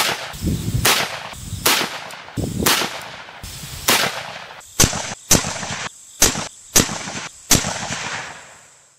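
A series of sharp rifle shots from a cut-down, freshly recrowned H&R Handi-Rifle being test-fired for accuracy, the cracks coming roughly every half second to second. Gusting wind rumbles on the microphone between the early shots.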